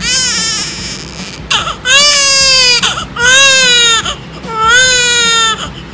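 Newborn baby crying: a short cry, then three loud wails of about a second each with short breaths between.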